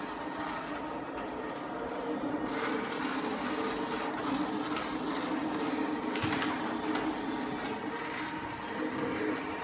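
Roland vinyl cutter plotter cutting window tint film: its motors whir steadily with a pitch that shifts as the blade carriage moves back and forth across the film.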